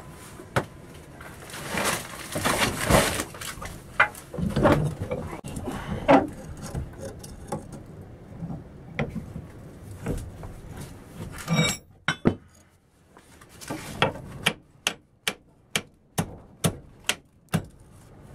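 Blacksmith working hot iron in a leg vise: irregular metal clanks and scraping as the bar is bent with a bending rod and tongs, then, about halfway through, a steady run of about ten sharp hammer blows on metal, roughly two a second.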